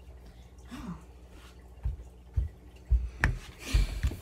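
Dull low thumps, five in about two seconds, with one sharper knock among them and a brief rustle near the end: a person moving up close to the camera, bumping the desk it stands on.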